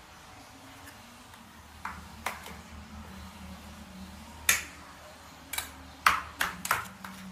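Metal spoon clinking sharply against a bowl while ingredients are stirred. The clinks are separate, with a loud one near the middle and a quick run of four near the end.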